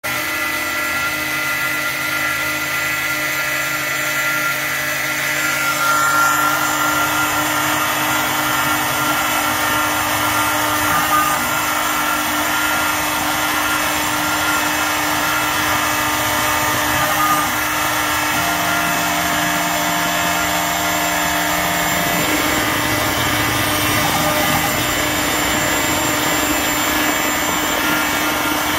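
Stepcraft M.1000 CNC router's spindle running at high speed while its small end mill cuts a carbon fibre sheet submerged in water, a steady whine over a hum. It grows louder about six seconds in, and its tones shift as the cut moves along.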